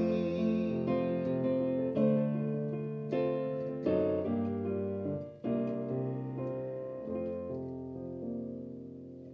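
Digital piano playing the slow closing bars of a hymn: sustained chords struck about once a second, each left to ring, growing softer toward the end.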